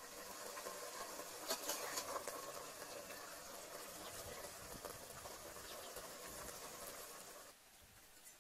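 Metal ladle stirring and scooping fish soup in an aluminium pot, with a few sharp clinks against the pot about a second and a half in and broth sloshing. The sound drops away near the end.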